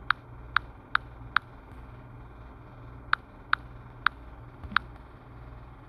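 Eight short, sharp clicks in two groups of four, about two a second with a pause of about a second and a half between the groups, over a steady low hum.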